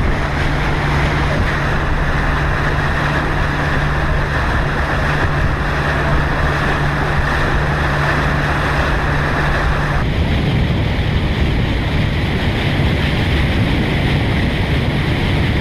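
A motor launch under way: a steady engine drone mixed with wind buffeting the microphone and water rushing past the hull. About ten seconds in, the steady engine hum drops out and the sound changes abruptly, leaving mostly wind and water noise.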